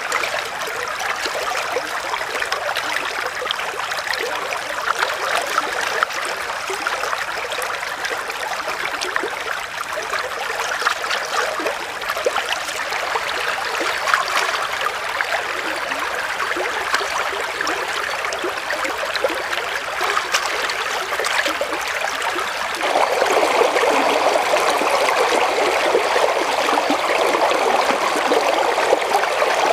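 Shallow stream flowing over rocks, a steady rushing trickle. About two-thirds of the way through it becomes louder and fuller.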